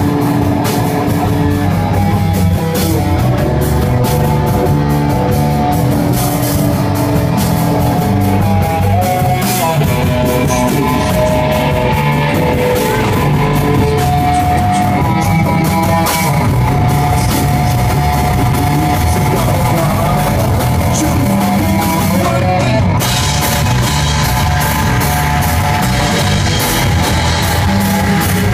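Rock band playing a song, with electric guitar and drum kit over a strong bass end, steady and loud throughout.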